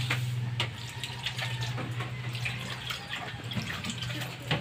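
Running water, with a steady low hum underneath and a few small clicks.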